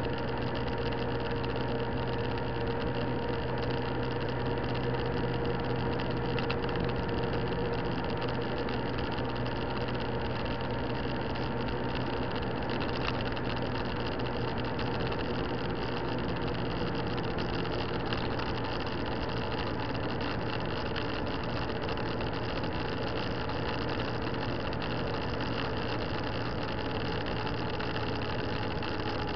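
Motorcycle engine running at steady revs while riding, heard from a camera mounted on the bike, over a steady rush of wind and road noise.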